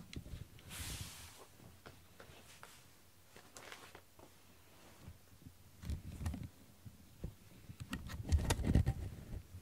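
Close-by rustling and soft bumps: a brief rustle about a second in and another a few seconds later, then groups of dull thumps and light knocks near the end.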